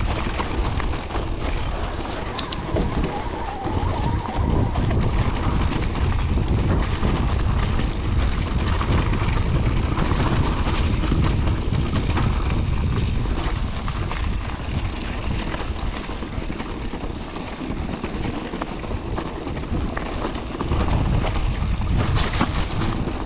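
Mountain bike descending a rough forest trail at speed: steady wind rumble on the handlebar camera's microphone and tyre roar over gravel and dirt, with a few sharp clicks and knocks from the bike over bumps.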